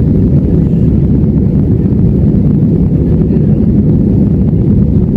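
Airbus A320 cabin noise in the climb after takeoff: the jet engines and rushing air make a loud, steady low rumble, heard from inside the cabin.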